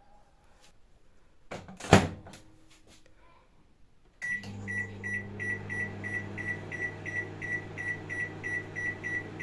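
Microwave oven door shut with a loud knock about two seconds in; a couple of seconds later the microwave starts, running with a steady low hum and a rhythmic high tick about three times a second.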